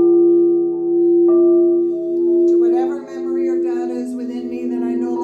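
Singing bowl ringing with a sustained, slowly pulsing tone, struck again about a second in. About three seconds in, a higher, fluttering sound joins over the ringing.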